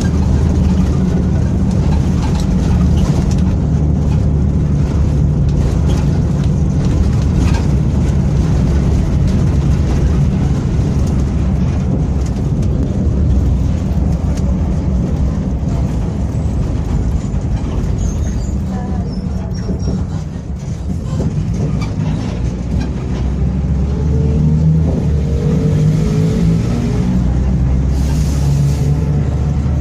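Mercedes-Benz OF-1722M city bus running under way, its diesel engine droning steadily with the growl of its driveshaft (cardan). About twenty seconds in the engine eases off, then rises in pitch again a few seconds later as the bus pulls away, with a short hiss near the end.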